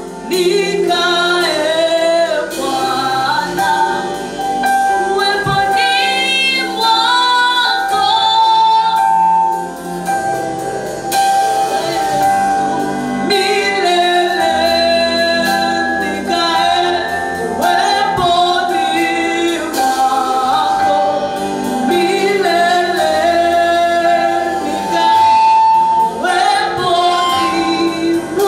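Gospel worship song in Swahili sung by a group of voices, with long held notes over instrumental accompaniment.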